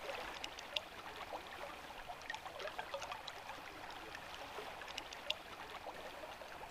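Faint trickling and lapping of river water, with scattered small ticks and drips.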